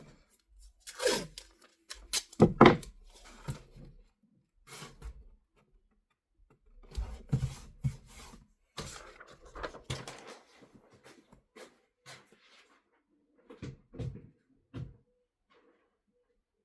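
Handling noises as a new target is set up: scattered knocks and clicks, the loudest about two seconds in, with stretches of rubbing and rustling.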